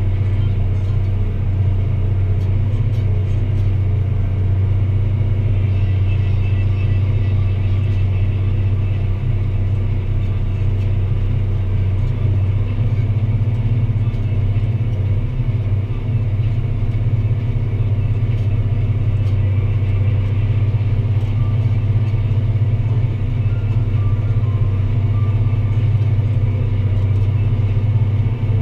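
Deutz-Fahr Agrotron 165 MK3 tractor engine running steadily with a deep, even drone as it pulls a plough.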